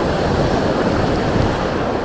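Strong wind buffeting the microphone in a steady loud rumble, with waves washing on the shore beneath it.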